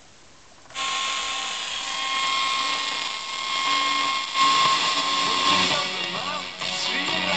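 1970s Grundig Elite Boy 700 portable radio coming on suddenly about a second in with loud static hiss and steady whistling tones. As the tuning knob turns in the second half, the hiss shifts and whistles glide up and down in pitch while it tunes between stations.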